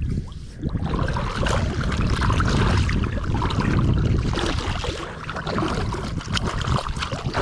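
Rumbling wind and water noise on the camera microphone, with scattered knocks and crackles.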